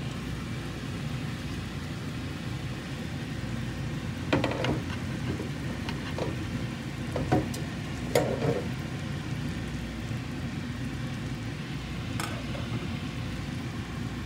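Pot of fish soup at a rolling boil on a gas burner: a steady bubbling hiss with a low rumble. A few short sharp clinks and knocks come about four to eight seconds in, and one more near the end.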